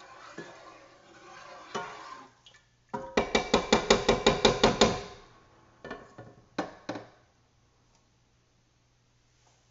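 Metal kitchen utensils clattering against a pan: a quick, loud run of about a dozen ringing clinks, roughly six a second for two seconds, followed by a few single knocks, then quiet.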